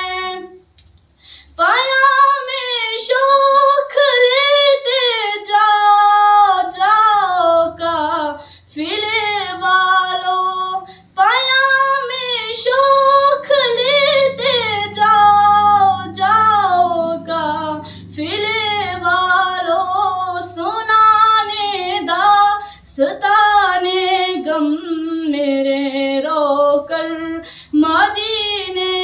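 A girl singing a naat, an Urdu devotional song in praise of the Prophet, solo and unaccompanied, in long held, ornamented phrases with short breaths between them.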